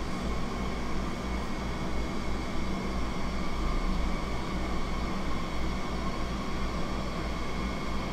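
Steady machine running noise: a low hum with a few constant whining tones above it, as of a motor or fan running without a break.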